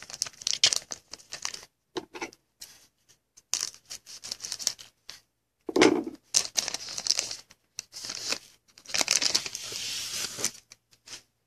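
Shiny foil wrapper of a trading-card pack being torn open and crinkled in irregular crackling bursts. The longest stretch of tearing comes near the end.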